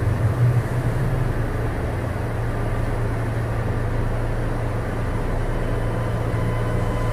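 Cabin noise of a Seaside Line 2000 series rubber-tyred automated train running, a steady low hum with faint steady whining tones from its Toyo IGBT-VVVF traction equipment.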